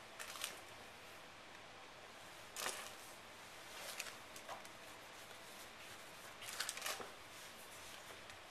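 Rubber-soled sneakers scuffing and tapping on a hardwood floor as the wearer steps and turns, a handful of short scuffs spread out, with a quick run of them about six and a half seconds in.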